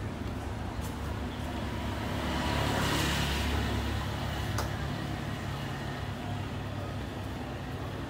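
Street traffic with a motor scooter passing: its engine grows louder to a peak about three seconds in, then fades, over a steady low rumble of traffic.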